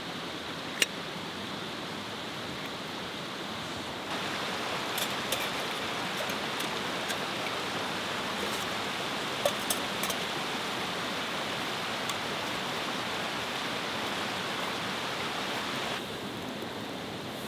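Steady rushing of a nearby woodland stream, louder from about four seconds in until near the end. A sharp click just under a second in and a few light clicks later come from metal camp cookware being handled.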